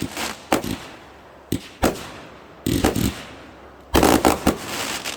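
Fireworks going off: irregular sharp bangs, each fading quickly, then a rapid cluster of loud bangs about four seconds in.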